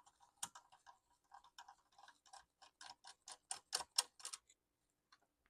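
A run of small, sharp clicks from hand work on a Lenovo T430 laptop being taken apart. The clicks are scattered at first, then settle about midway into a regular series of three or four a second that grows louder and stops near the end.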